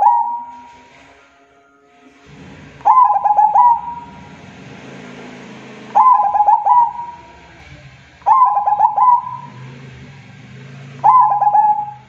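Zebra dove (perkutut) cooing: four phrases spaced about two and a half to three seconds apart, each a quick stuttering run of notes ending in a held note. A faint low hum lies underneath from about two seconds in.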